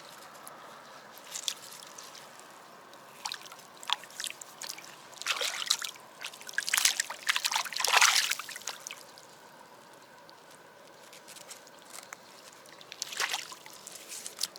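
Water splashing and sloshing in short, irregular bursts, heaviest in the middle, as a freshly caught, lively fish thrashes in the water.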